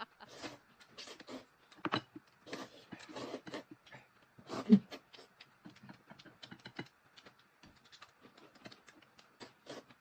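Close-up eating sounds: chewing, smacking and slurping, heard as an irregular run of quick wet clicks and smacks, with one louder smack about halfway through.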